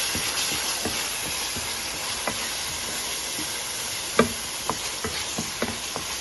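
Spice masala sizzling in a stainless steel frying pan as freshly added yogurt is stirred in with a wooden spatula, which scrapes and taps the pan now and then, the loudest tap about four seconds in.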